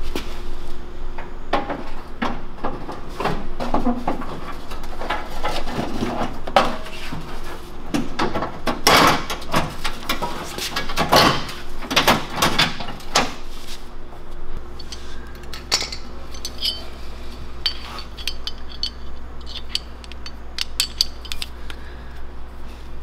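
Irregular clanks, knocks and rattles of a pickup's front bumper being set back onto the truck and lined up on its bolts, heavier through the first half and giving way to lighter metallic clinks later on.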